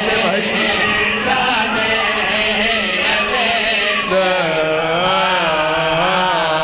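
Men's chorus chanting a mourning lament into microphones, amplified. From about four seconds in the voices hold long notes with a wide, wavering pitch.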